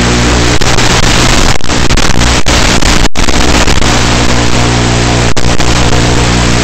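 Loud, steady static hiss with a buzzing hum, the noise of an analog FPV video link's audio channel, broken by several brief sharp dropouts as the signal breaks up.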